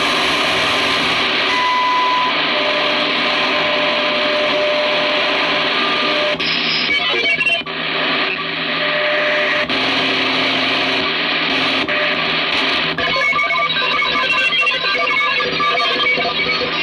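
Receiver audio from a Kenwood TS-440S HF transceiver, passed through a BHI NEDSP1061-KBD DSP noise-reduction unit, while the dial and controls are adjusted. Music from a shortwave station sits under a band of hiss, with steady whistles that come and go, and the sound shifts abruptly several times as the settings change.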